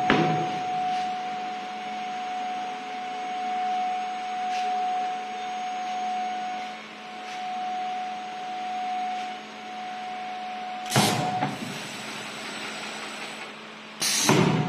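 Servo automatic spin welding machine for PP filters running, a steady whine over a lower hum, with two short loud bursts of noise about eleven and fourteen seconds in.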